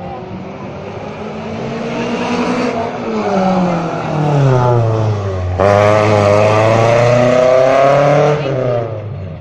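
A 1993 Toyota Celica's engine revving under hard driving. The pitch falls over a few seconds as it slows, then about halfway through it turns sharply louder and holds high revs for nearly three seconds before dropping away near the end.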